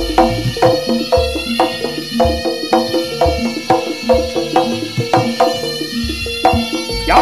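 Jaranan gamelan music playing over a loudspeaker: pitched metal percussion struck in a quick, steady rhythm over low drum beats.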